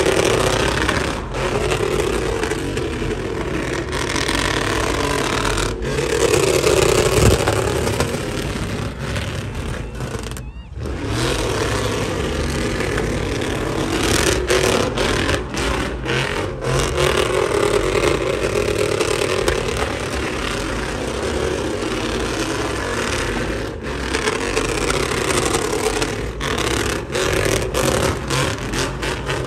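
Chevrolet Silverado pickup's engine held at high revs while it spins doughnuts, the rear tyres spinning and smoking on the pavement. The engine note drops off briefly about ten seconds in, then picks back up.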